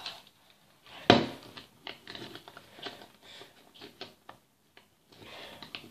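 Small plastic fidget toy being handled: one sharp click about a second in, then scattered light taps and clicks.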